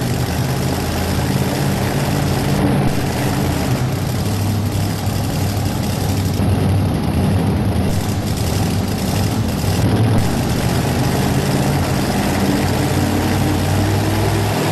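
Modified two-wheel-drive pulling truck's engine idling steadily and loudly before its pull.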